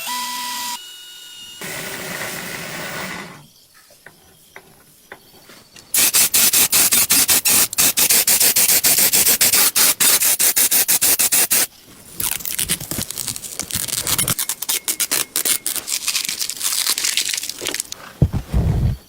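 Scraping and rubbing on the metal parts of an antique Singer sewing machine during cleaning. About six seconds in, a run of loud, very fast strokes begins and lasts about six seconds, then gives way to slower, irregular scraping.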